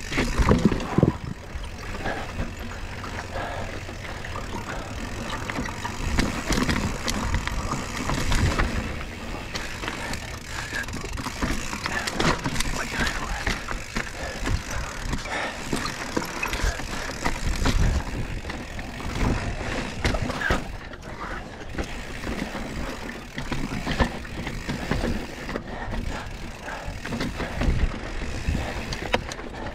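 Mountain bike ridden over rough trail: tyres rolling and scrabbling over dirt and rock, with a constant clatter of chain and frame rattle and heavier knocks over bumps now and then.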